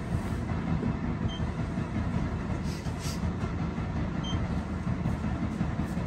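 Steady low rumble of running machinery, with two short faint beeps about three seconds apart.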